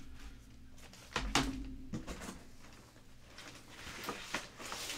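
Faint handling noise: a few soft knocks and rustles, about a second in, around two seconds, and again near the end, over a low steady hum.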